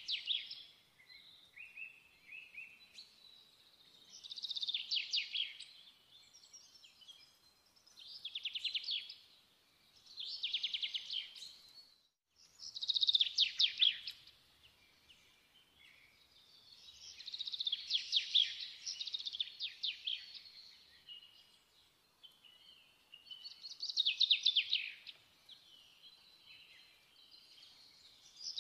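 Songbird singing: repeated phrases of rapid trilled notes, each about a second long, coming every two to three seconds.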